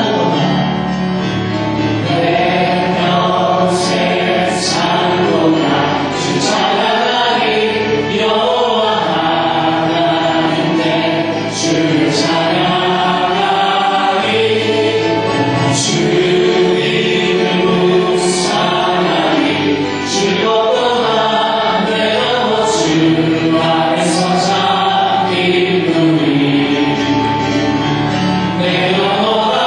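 Church praise team of women and men singing a Korean gospel song together through handheld microphones.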